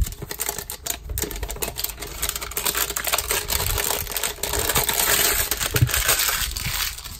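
A cardboard trading-card hanger box being handled and opened by hand: a rapid, irregular crackle of clicks and rustling, loudest over the middle seconds.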